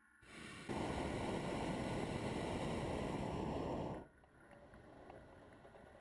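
Hot air balloon's propane burner firing in one blast of about three seconds, a loud steady rush that cuts off suddenly, followed by quieter background noise.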